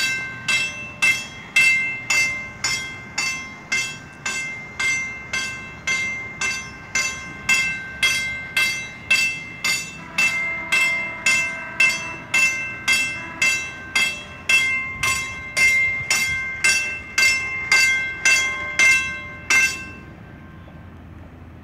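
Drawbridge warning bell ringing in rapid, even strokes, about two a second, signalling that the bridge is closed to traffic and about to open. It stops near the end, leaving a low steady background.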